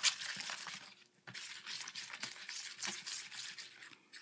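Homemade glue-and-borax slime being worked by hand or stirred, a dense run of small squishing clicks and crackles with a brief lull about a second in.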